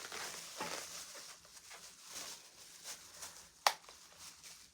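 Faint rustling and handling of the headphones' packaging, with one sharp click about three and a half seconds in.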